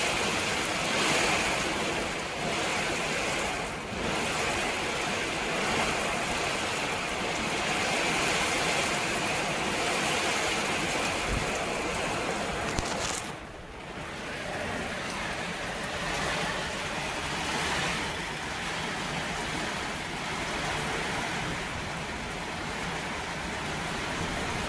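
Heavy rain pouring steadily, a dense even hiss, briefly dropping in level about halfway through.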